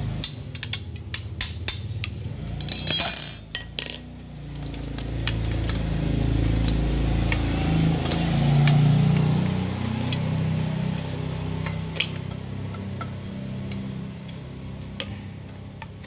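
Metal clinks and knocks as the parts of a disassembled washing machine motor, its aluminium end housing and wound stator, are handled on a tile floor, with a louder clatter about three seconds in. From about four seconds in a low rumble swells and fades away again by about twelve seconds.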